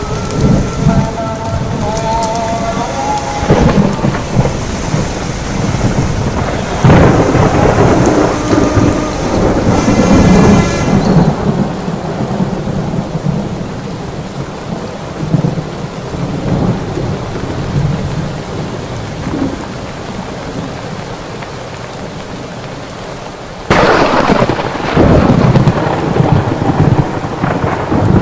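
Heavy rain falling steadily with rolling thunder. The thunder swells twice in the first half, and a sudden loud thunderclap breaks in near the end and keeps rumbling.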